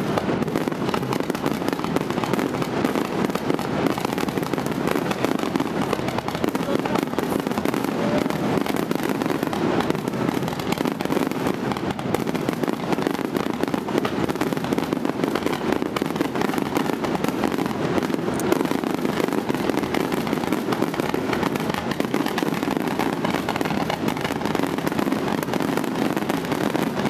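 Fireworks finale: aerial shells bursting in a continuous barrage, overlapping bangs and crackles with no pauses between them.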